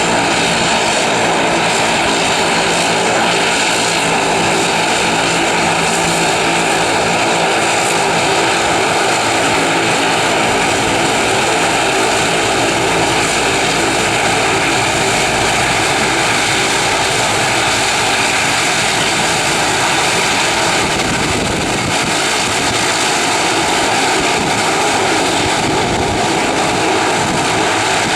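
Aircraft engines running loud and steady, a constant rushing noise with a steady whine near 1 kHz and a low hum of several tones, unchanging throughout.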